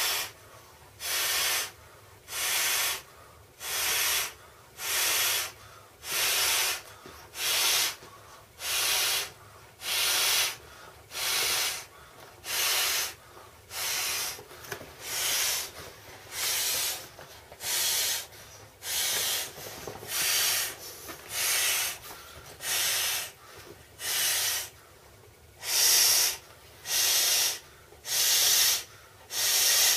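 Breaths blown by mouth into the valve of an inflatable swim ring: a steady series of hissing blows, about one a second, with short quiet gaps for each inhale.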